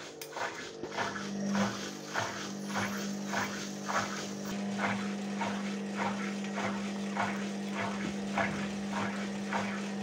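Panasonic front-loading washing machine running with its drum turning: a steady motor hum starts about a second in, under a regular knocking about twice a second.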